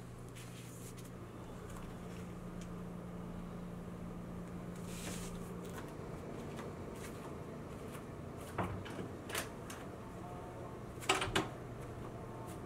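Quiet room tone with a low steady hum that stops about halfway through, then a few small knocks and, near the end, a door latch clicking as a door is opened.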